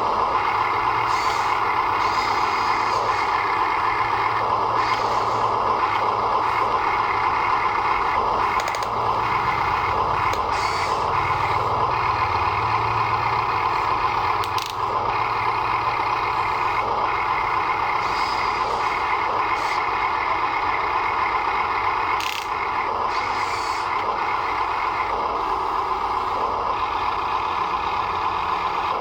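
Radio-controlled toy construction vehicle's electric motors and plastic gearing whining steadily, with scattered small clicks.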